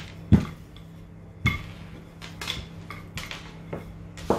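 Sharp wooden knocks and lighter taps: a wooden rolling pin and hands handling a sheet of dough on a wooden worktop. The loudest knock comes about a third of a second in and another about a second and a half in.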